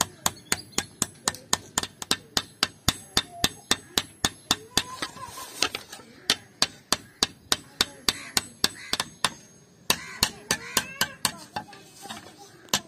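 Hand hammer peening the brass pins of a cleaver's wooden handle on an anvil: rapid, regular ringing taps, about four a second, with a short break about ten seconds in.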